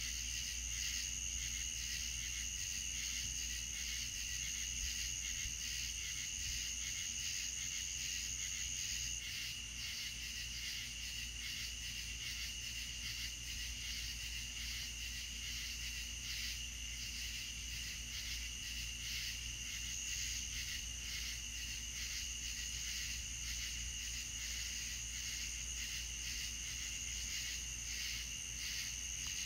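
Chorus of night insects trilling steadily in a fast pulsing rhythm at two high pitches; the higher trill drops out about nine seconds in and returns near the end. A low steady hum sits underneath.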